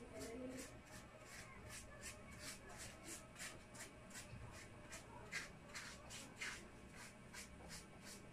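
Small paintbrush stroking paint onto a table base: a faint, quick brushing rhythm of about three strokes a second.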